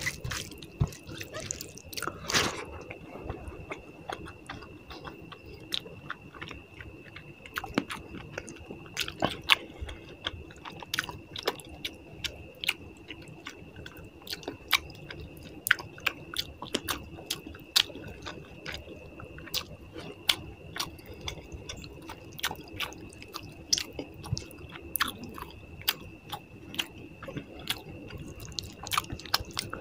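A person chewing a mouthful of fish curry and rice close to the microphone, with frequent short wet smacks and clicks of the mouth.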